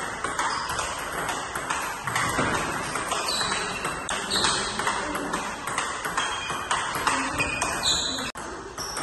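Table tennis ball clicking back and forth between bats and table in a quick, continuous rally.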